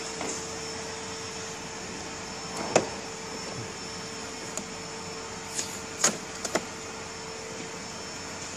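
Steady hum of idling machinery with one constant tone, broken by a few sharp clicks and taps: one about three seconds in and a small cluster around six seconds in.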